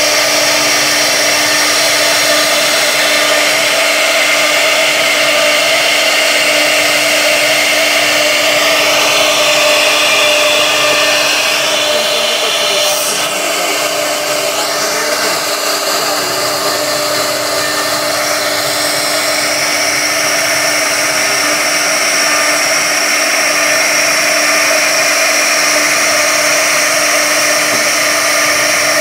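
CNC router spindle running at high speed while its carving bit cuts a relief pattern into a wooden board: a steady, high machine whine over the cutting noise, with a brief sweep in pitch about halfway through.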